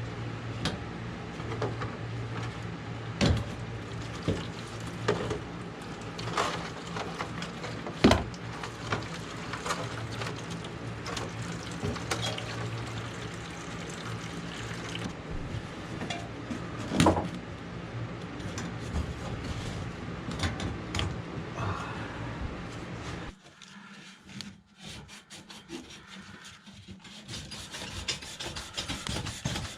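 Hand tools working on pipe: scattered knocks and clicks over a low steady hum, then after an abrupt break, quick rapid rubbing or rasping strokes near the end.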